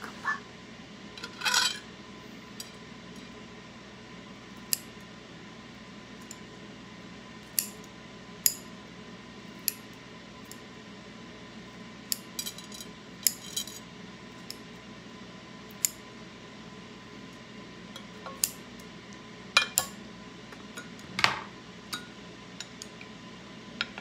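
Kitchen scissors snipping through an octopus tentacle, with sharp clicks of the scissors and chopsticks against a ceramic plate, scattered irregularly a second or more apart, some in quick clusters. A low steady background hum runs underneath.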